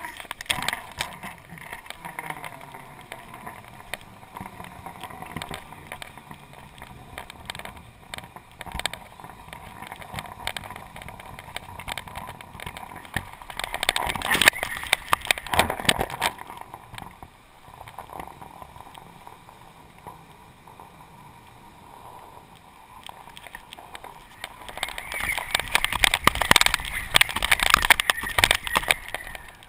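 Wind buffeting and rattling on a GoPro camera carried aloft by a kite, a rough steady noise that swells into louder gusts about fourteen seconds in and again near the end.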